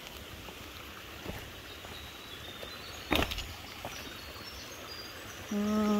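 Footsteps over loose creek-bed stones against a steady faint rush of a stream, with one sharp knock of a shoe on rock about three seconds in. A bird sings a short run of high notes that climb step by step, and a short steady hum of a voice comes near the end.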